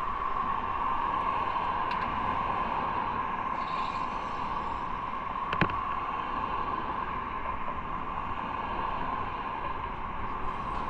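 Motorcycle running steadily on the road, its engine mixed with wind and road noise, with one sharp click a little past halfway.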